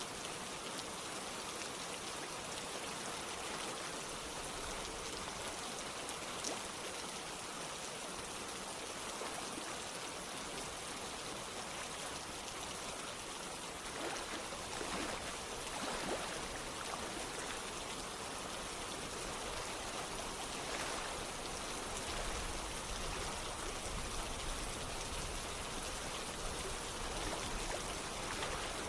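Steady rain falling together with running water, a constant hiss with a few louder drips now and then.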